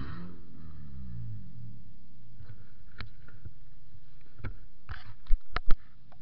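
Toyota Matrix's four-cylinder engine revving once and falling back to a low idle. A few seconds in comes a run of clicks and clunks, with two loud knocks near the end, as the in-car camera is handled and moved.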